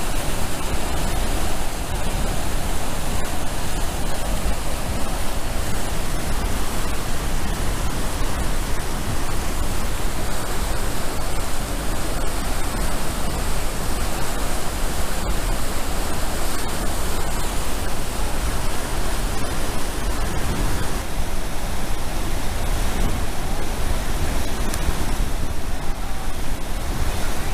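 Niagara Falls and the river rapids above it: a steady, loud rush of moving water that never lets up.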